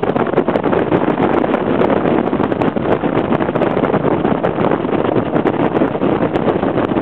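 Rigid inflatable boat under way, powered by twin 350 hp Yamaha V8 outboards: a steady, loud rush of wind buffeting the microphone mixed with engine and water noise.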